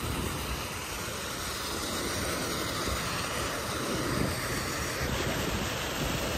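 Steady outdoor background noise: an even rushing hiss with a low rumble underneath.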